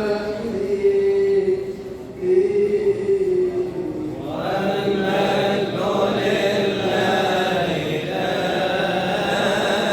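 Coptic Orthodox liturgical chant: a man's voice holds long, drawn-out notes. About four seconds in, more voices join in a fuller choral chant.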